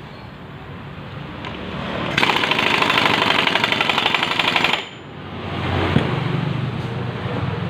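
Pneumatic impact wrench hammering in one loud burst of about two and a half seconds, starting about two seconds in, with quieter rattling before and after.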